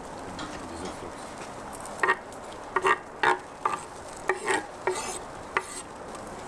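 Knife scraping and tapping on a wooden cutting board, pushing chopped greens into a cauldron of soup: about eight short, sharp knocks in the second half, over a steady background hiss.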